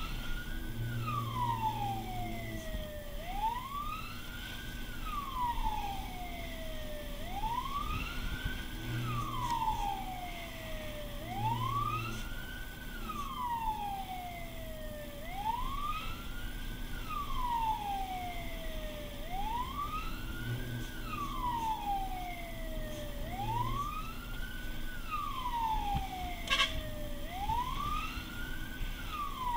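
Fire engine's wail siren, heard from inside the cab: it rises quickly and falls slowly, about once every four seconds, over the truck's engine and road noise. One sharp click near the end.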